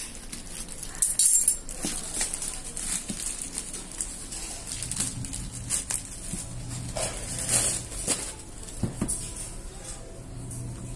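Plastic courier mailer bag crinkling and rustling as it is cut open with scissors and a cardboard shoebox is pulled out of it, with louder bursts of crinkling about a second in and again past the middle.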